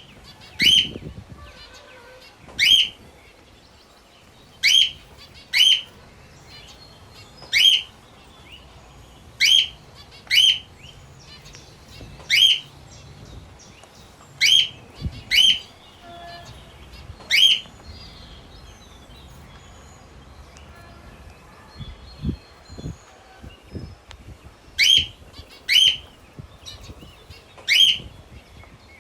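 A pet parrot giving loud, shrill single calls, one every second or two, each the same short note. The calls pause for several seconds about two-thirds of the way through, when only a few soft low knocks and faint chirps are heard.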